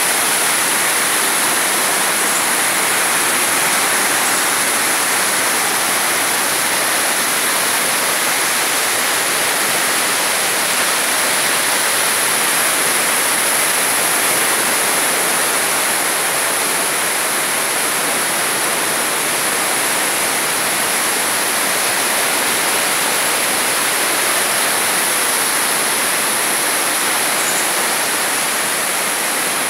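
Water falling from a rock overhang in a shower of drips and spray, a steady, unbroken hiss of falling water.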